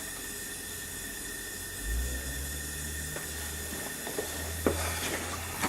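Garage space heater burning with a steady hiss. A low rumble joins in about two seconds in, and a few light knocks come near the end.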